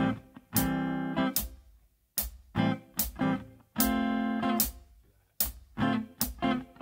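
Guitar playing a rhythm of short chord stabs and held chords on A minor 7 and D minor 7, over a hi-hat ticking a steady beat a little under once a second.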